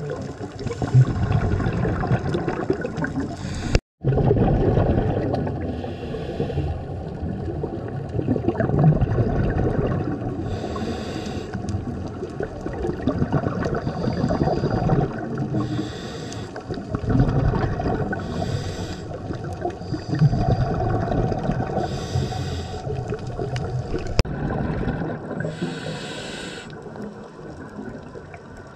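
Scuba diver breathing through a regulator, recorded underwater: a short hiss of each inhale every few seconds, with the low rumbling bubbles of each exhale in between. The sound drops out for an instant about four seconds in.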